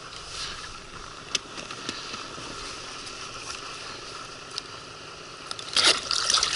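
A hooked small taimen thrashing at the water's surface beside an inflatable boat: loud splashing starts suddenly near the end. Before that there is only faint, steady river-water noise with an odd soft click.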